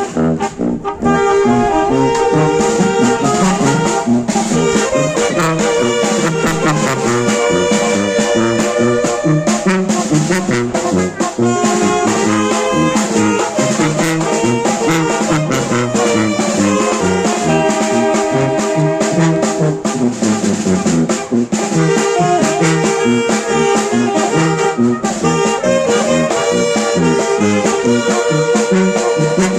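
Oaxacan village brass band (banda de viento) playing a tune: trumpets, trombones and saxophones in sustained and moving lines over steady percussion beats.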